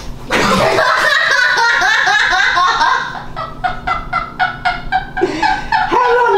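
A woman screaming, one long high wavering scream, then breaking into a quick run of short shrieks during a play-wrestle on a bed.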